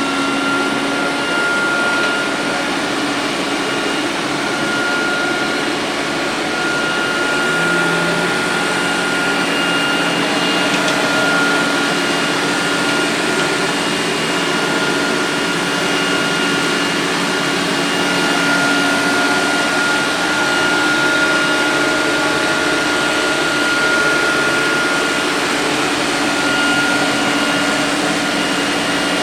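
Electrolux robot vacuum cleaner running: a steady whir of motor and airflow with a few steady whining tones over it.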